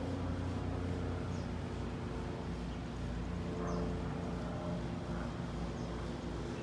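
Steady low mechanical hum with a few faint, short high chirps.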